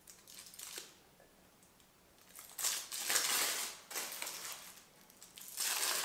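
Aluminium foil and a plastic bag crinkling and crumpling as they are pulled open around a shaorma wrap. The sound comes in several spells of rustling: a faint one at the start, then louder ones from about two and a half seconds in and again near the end.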